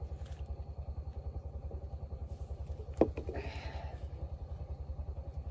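A small engine runs steadily with an even, low pulsing beat. About three seconds in, a beer can is set down with a single sharp knock, followed by a brief rustle.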